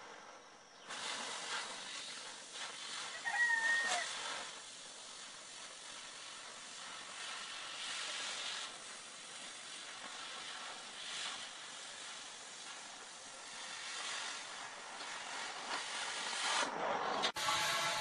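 Oxy-fuel cutting torch hissing steadily as it burns through a steel plate. A short bird call stands out about three seconds in.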